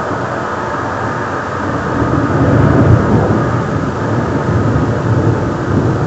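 Thunder rumbling low and continuously, swelling about two seconds in, loudest around the third second, and rolling on after it.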